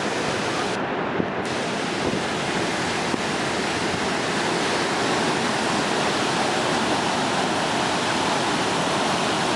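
Storm-driven ocean surf at high tide as a hurricane comes in: a steady, dense rush of breaking waves, mixed with wind.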